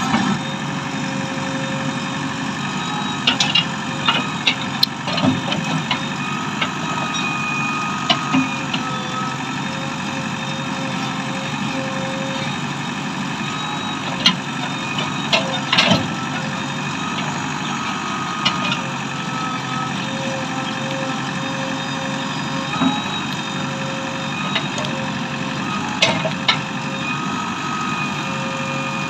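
JCB 3DX backhoe loader's diesel engine running steadily as the backhoe arm digs, with a held mid-pitched tone that comes and goes. Sharp clanks and knocks from the bucket and arm sound several times over the engine.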